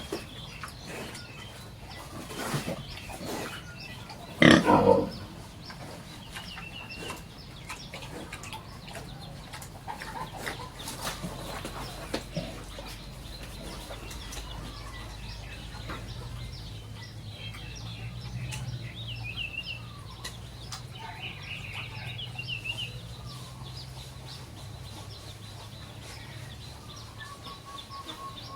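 Farmyard animals in and around a pig pen: chickens clucking at intervals, with one loud, brief animal cry about four and a half seconds in, and scattered knocks and clicks throughout.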